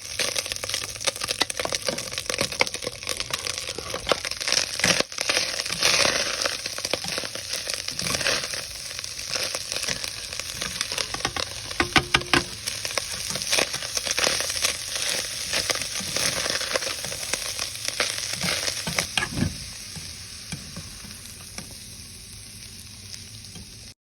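Food frying in a hot pan, sizzling and crackling, with stirring. It grows quieter near the end.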